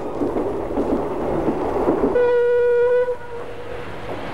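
Horn of a TAF diesel train, one steady note held for about a second, sounding about two seconds in over the rumble of the train running.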